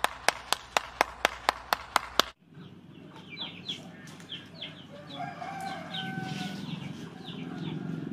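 A single person clapping steadily, about four claps a second, stopping suddenly about two seconds in. Then chickens in the background, short high clucks with a rooster crowing around the middle.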